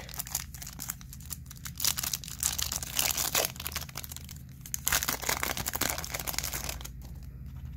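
Foil wrapper of a Topps Chrome baseball card pack being torn open and crinkled by hand: a run of crackling rustles that die down near the end.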